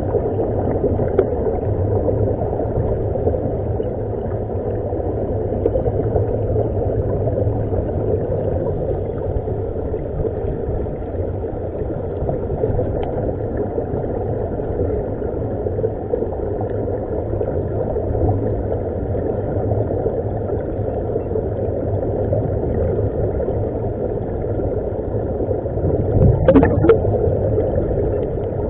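Steady, muffled underwater rumble of water and rising air bubbles from surface-supplied dive helmets, heard through a waterproof camera housing, with a brief louder burst near the end.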